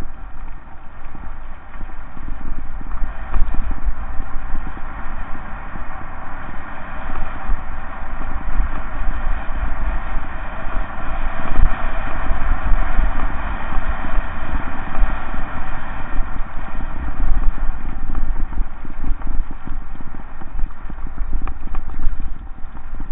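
Mountain bike rolling fast downhill on a loose gravel track: tyres crunching and the bike and camera mount rattling continuously over the stones, with a heavy rumble of wind on the microphone.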